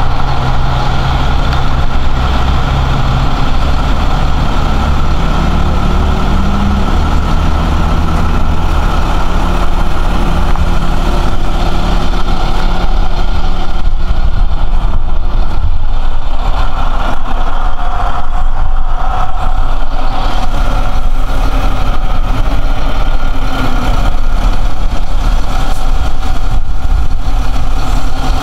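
Bucket truck's engine running steadily at idle, its pitch rising briefly a few seconds in.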